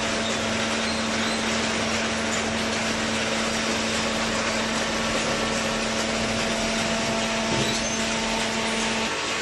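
Hydraulic cardboard baler running: a steady machine noise with an even hum, which cuts off near the end.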